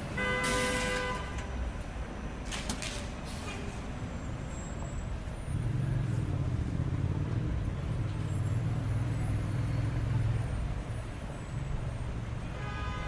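City street traffic: a car horn toots briefly near the start, then a heavy vehicle's engine drones past through the middle.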